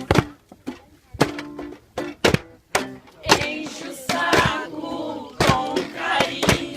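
About a dozen sharp, irregularly spaced thuds of hand tools striking during building work, over music with singing.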